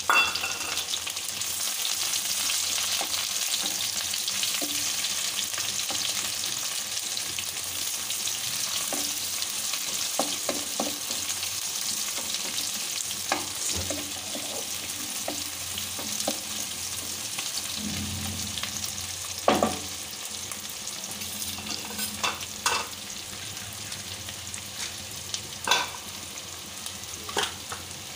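Sliced onions sizzling in hot mustard oil in a wok, the sizzle strongest at first and easing off. A spatula stirs them, knocking against the pan several times in the second half.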